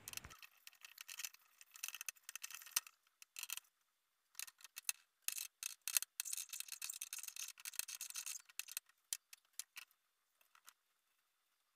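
Faint, irregular small clicks and rubbing as bottles packed with bamboo strips, and their caps, are handled.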